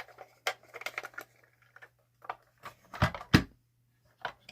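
Clicks, taps and knocks of a vintage metal toy truck being handled and set down, with two louder knocks about three seconds in.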